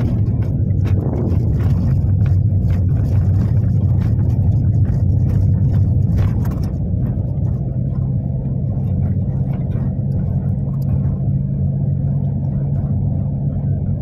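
Engine and road noise of a moving vehicle heard from inside the cabin: a steady low drone. Through about the first half it carries a scatter of sharp clicks and rattles.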